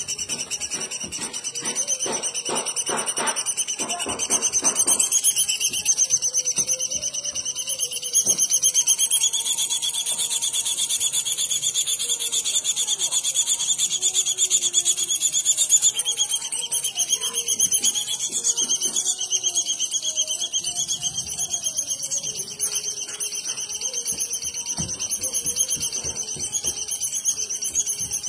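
Bird song: a continuous high-pitched, rapidly pulsed trill, the 'tembakan' rapid-fire song of an unidentified bird used as masteran training audio for songbirds. Lower, shifting chirps and short notes sound beneath it, with a quick rhythmic run of notes a few seconds in.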